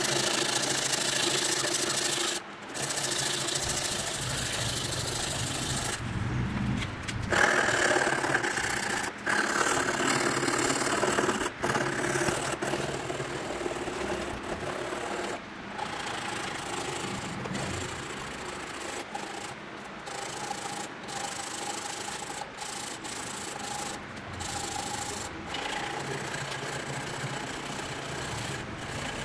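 Abrasive rubbing on the cracked part of a racket frame as it is sanded down: a rough scraping noise that goes on with frequent short breaks, loudest in the first half.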